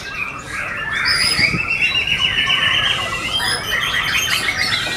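White-rumped shamas singing, a dense run of loud, varied whistles and rapid trills with several birds overlapping.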